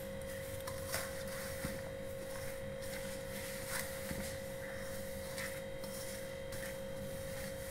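Hands rubbing flour and oil together in a stainless steel bowl: soft brushing with a few light taps and scrapes against the metal, under a steady humming tone.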